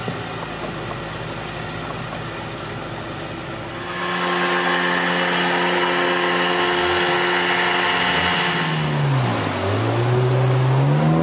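Outboard motor on a river longboat running steadily. About four seconds in it is throttled up to a louder, higher note, and near the end the engine note drops sharply and then climbs back up.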